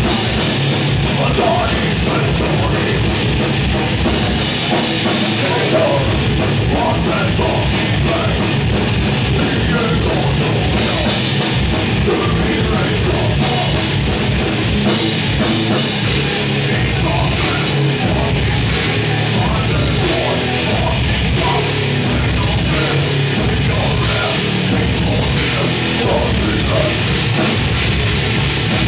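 A death/thrash metal band playing live at full volume: distorted electric guitars, bass and a drum kit, with fast kick-drum strokes that drop out briefly now and then.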